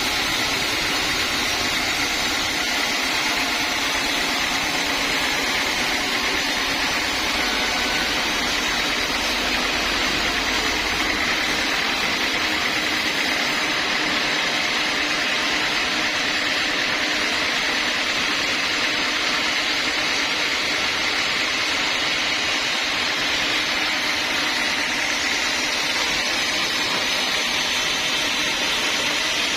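Sawmill saw running through mahogany, a continuous even machine noise with a steady high whine that does not let up.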